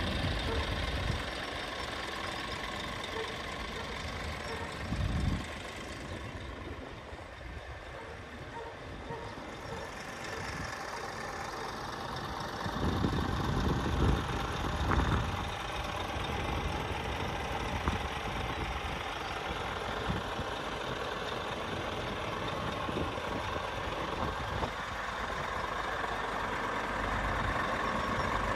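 Scania R490 truck's 13-litre inline-six diesel engine idling steadily. There are a few brief louder low rumbles, about five seconds in and again around thirteen to fifteen seconds in.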